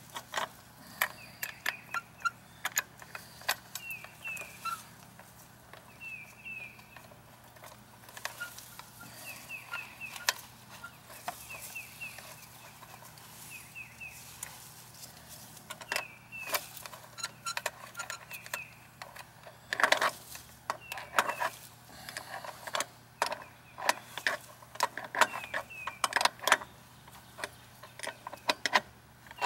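Sharp clicks and knocks from hands and tools working on an outdoor sill faucet, loudest in a cluster about twenty seconds in and again near the end. A bird chirps over it again and again, in short falling notes in twos and threes.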